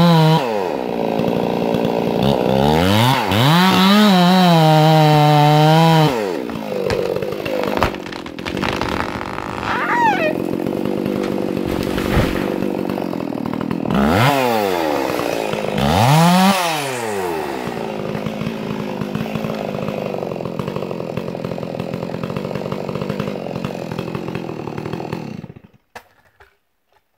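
Chainsaw cutting trees, its engine dropping in pitch and revving back up several times between stretches of steady cutting, then cutting out suddenly near the end.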